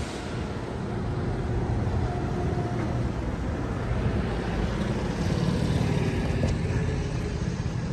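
Steady street traffic noise with a low rumble. A small utility vehicle runs past, and the noise swells for a few seconds around the middle.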